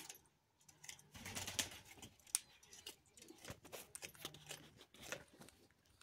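Faint, irregular small clicks and scratches: a rose-ringed parakeet shifting its claws on a woven plastic tray.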